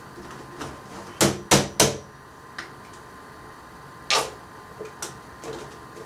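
Painting supplies being handled on a rolling cart: three sharp knocks in quick succession about a second in, a single knock about four seconds in, and a few lighter clicks between.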